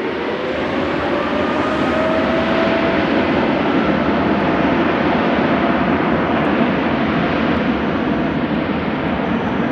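Twin-engine widebody jet airliner taking off, its engines at takeoff thrust: a loud, steady roar with a whine that rises in pitch over the first couple of seconds.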